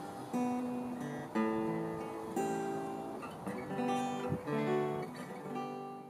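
Tanglewood acoustic guitar, freshly fitted with a bone nut and saddle and new strings, being played: chords struck about once a second and left to ring, fading near the end.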